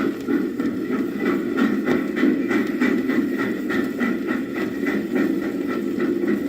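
Train sound effect from a vintage vinyl record: a train running along with a steady rumble and a regular rhythmic beat of about three strokes a second.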